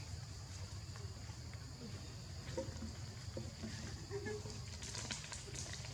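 Outdoor rural ambience: insects chirring steadily throughout, with faint scattered short calls or distant voices and a low background hum.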